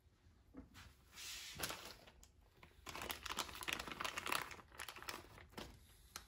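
Packaging crinkling as it is handled: a short spell about a second in, then a longer stretch of dense crackling from about three seconds to five and a half.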